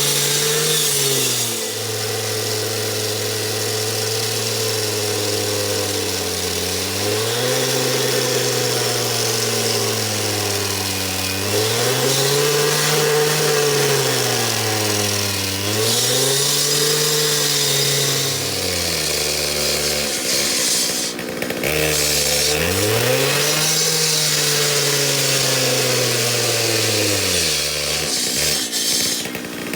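Husqvarna gas-powered concrete saw running hard while cutting concrete, its engine pitch repeatedly sagging and climbing back as the blade loads and frees up, dropping to a low idle briefly in the middle and again near the end.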